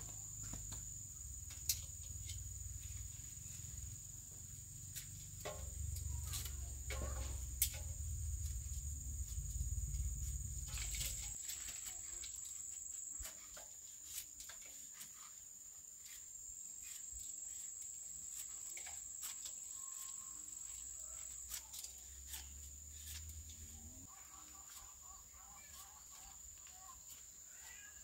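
Insects drone in a steady high-pitched whine, with scattered sharp clicks and scrapes from a cleaver paring the skin off taro corms over a metal basin. A low rumble underneath stops about eleven seconds in.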